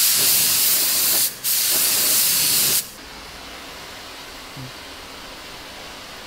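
Compressed-air paint spray gun hissing loudly as it sprays, in two passes with a brief break just after a second in. It cuts off about three seconds in, leaving a much quieter steady background.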